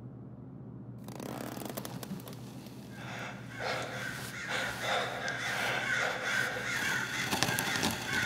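Harsh, repeated crow-like cawing calls, starting about three seconds in and growing louder, over a low steady hum.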